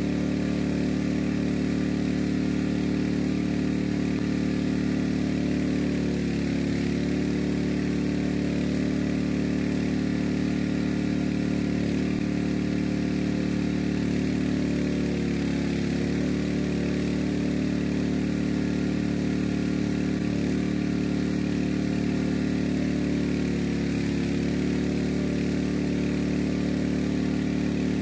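A small engine driving a water pump, running steadily at one even speed. It powers the jet of water that drills the well.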